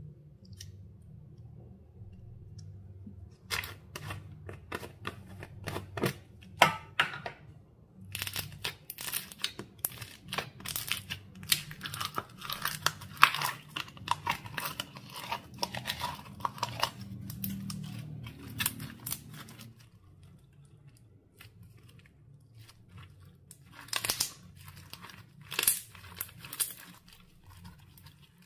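Clear slime being squished, stretched and pulled apart by hand, making sticky crackling and popping. The crackles come thick and fast for most of the stretch, pause, then return in a few short bursts near the end.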